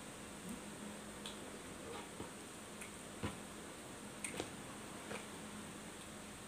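Eating by hand: scattered soft wet clicks and smacks from chewing and fingers working rice, roughly one or two a second, the loudest about three seconds in, over a steady faint hum.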